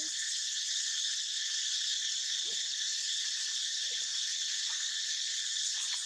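Steady high-pitched drone of an insect chorus, unbroken throughout, with a few faint short calls lower down.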